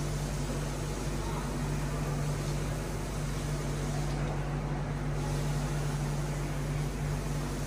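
Steady low mechanical hum with an even hiss over it, unchanging throughout, like a ventilation fan or air-handling unit.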